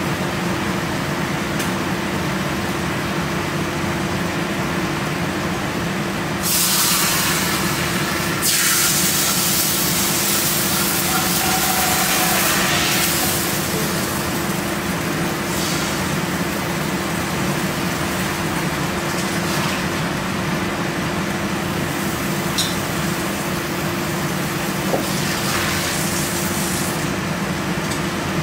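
Kitchen range hood fan running with a steady hum. About six seconds in, a louder hissing rush rises over it and lasts about seven seconds, with shorter fainter hisses later.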